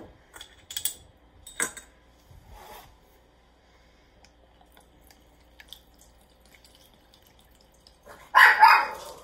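A dog barks twice in quick succession near the end, loudly, agitated by birds on the deck. Before that come a few light clinks of glass swing-top bottles and a metal funnel being handled.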